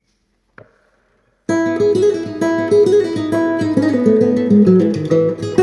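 Guitar music starting about a second and a half in: a melody of quickly repeated plucked notes over a low bass, after a brief faint click.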